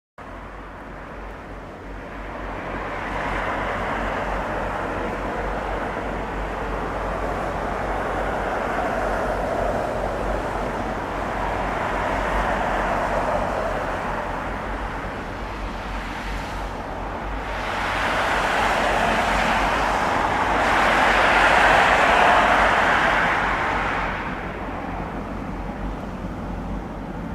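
Jet engine roar from a Boeing 747-400 on approach. A steady rumble swells to its loudest about three-quarters of the way in, then fades a little.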